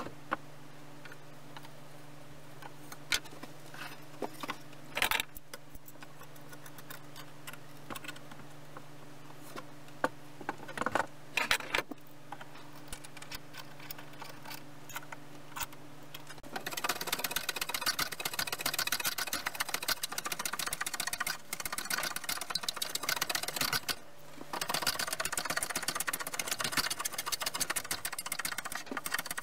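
Metal clamps being handled and tightened: scattered clicks and knocks over a low steady hum. About 16 seconds in, a handheld power tool starts cutting the edge of a stacked, glued pine ring, a continuous harsh rasp that stops briefly around the 24-second mark and starts again.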